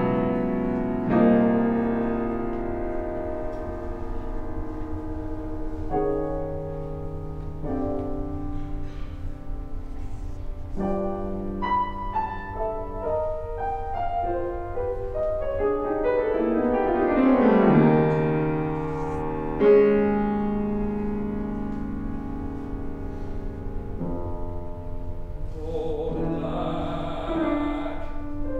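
Grand piano playing the introduction to a classical art song, with sustained ringing chords and a few louder swells. A male classical voice with vibrato enters near the end.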